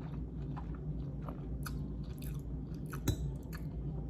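Close-miked chewing of a mouthful of noodles: soft, wet mouth clicks and smacks at irregular intervals, with one sharper click about three seconds in.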